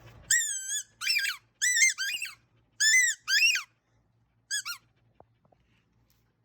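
A squeaky rubber ball toy being chewed and squeezed in a dog's mouth: six high squeaks in quick succession, each rising and falling in pitch, then a short double squeak after a pause.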